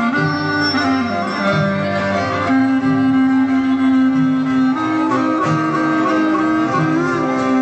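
Traditional Greek folk dance music from Epirus, a pogonisio, with long held melody notes over a steady, evenly pulsing accompaniment.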